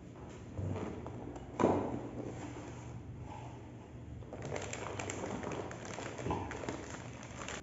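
Computer parts being unboxed and handled on a table: a dull thud, then a sharp knock, the loudest sound, about one and a half seconds in, followed in the second half by rustling and scraping with small clicks and one more knock.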